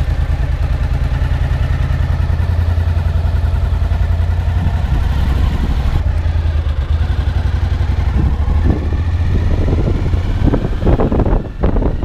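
Motorcycle engine running as the bike pulls away and rides slowly along a street.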